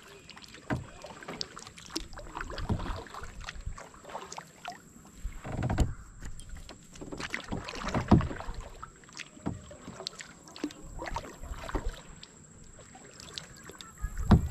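Kayak paddle strokes: the blade dipping and splashing in calm river water every second or two, with drips and small knocks, the loudest strokes about eight seconds in and just before the end.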